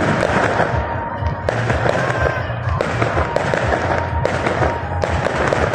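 Fireworks going off in quick succession: many overlapping bangs from bursting aerial shells, with crackling between them.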